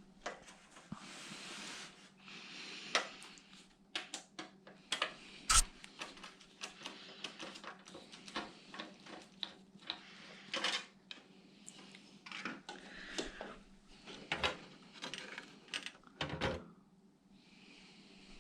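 Computer parts being handled in and around a PC case: a long run of irregular clicks, taps and clatters of small hard pieces of metal and plastic, with rustling in between and one louder knock about five and a half seconds in. A faint steady hum runs underneath.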